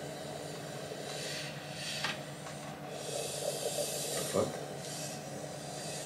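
A Ouija board planchette sliding and scraping across the board in short strokes under the fingertips, over a steady hiss and low hum of room tone. One short knock about four and a half seconds in.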